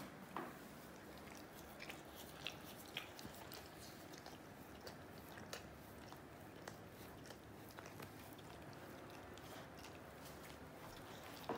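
A Staffordshire bull terrier licking and nibbling at her own paw: faint wet licks and small nibbling clicks, scattered irregularly, a few a little louder than the rest.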